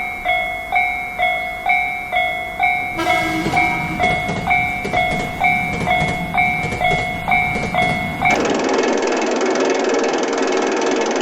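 Japanese level-crossing warning bell dinging steadily, a little under three rings a second, with a rumbling noise joining in about three seconds in. About eight seconds in the bell cuts off abruptly and a loud, steady rushing noise takes over.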